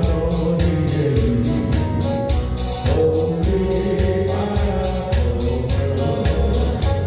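Music: a song with a steady drum beat, a pulsing bass line and sustained melodic lines.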